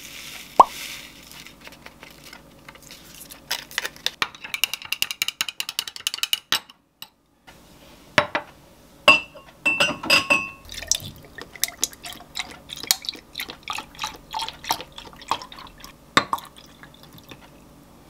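Glassware clinking and tapping on a countertop, with short ringing glass tones, a run of quick ticks partway through, and liquid being poured while an oatmeal latte is made in a shot glass and a tall glass.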